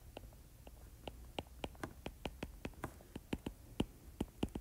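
Stylus tip tapping and clicking on a tablet screen while writing by hand: a quick, irregular run of light clicks, several a second.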